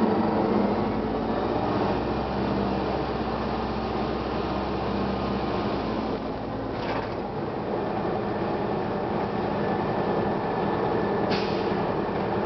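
1999 Gillig Phantom transit bus's Detroit Diesel Series 50 four-cylinder diesel running steadily, its low rumble easing about six seconds in. Two short, sharp sounds cut through, near the middle and near the end.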